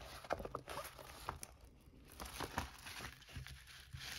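Faint crinkling and rustling of the clear plastic cover film on a diamond-painting canvas as hands handle it and press it flat, with scattered small crackles and taps.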